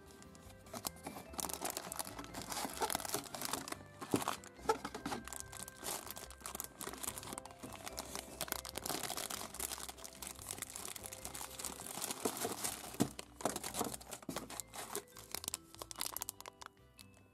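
A clear plastic bag and the shiny plastic wrappers of individually wrapped chocolate minibars crinkling and rustling as they are handled, with sharp crackles here and there, over soft background music. The crinkling sets in about a second in and dies away near the end.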